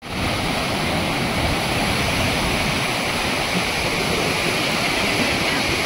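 Steady rush of muddy floodwater churning through the open gates of a river barrage, an even, unbroken water noise.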